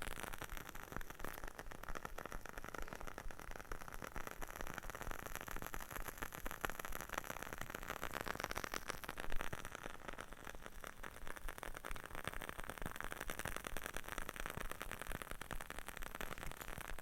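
Wooden-wick crackle candle burning, a steady dense crackle of many tiny pops, with one slightly louder pop about halfway through.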